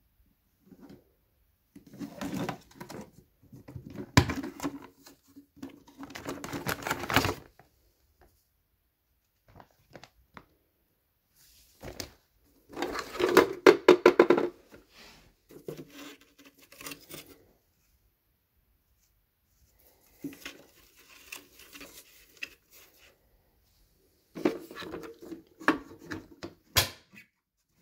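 Plastic housing and dust-compartment lid of a Eureka Mighty Mite canister vacuum being handled: irregular bursts of plastic clattering and knocking, with sharp clicks of the lid and latches, the loudest near the end. The vacuum is not running.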